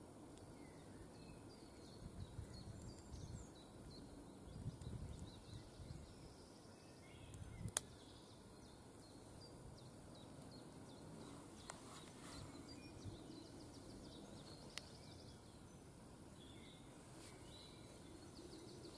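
Faint woodland ambience: small birds chirping here and there, with some low rustling in the first half and a few sharp clicks, the loudest about eight seconds in.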